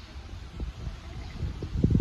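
Wind buffeting the microphone in low, uneven gusts, strongest just before the end.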